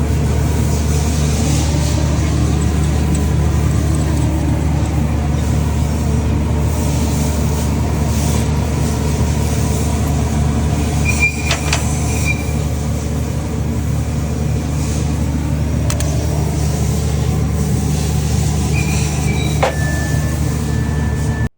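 Steady, loud low drone of machinery running, with two sharp metallic clinks, one about halfway through and one near the end. The sound cuts off abruptly at the end.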